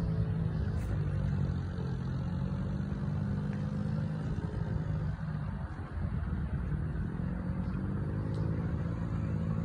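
Kubota tractor's diesel engine idling steadily, a low hum whose pitch wavers slightly.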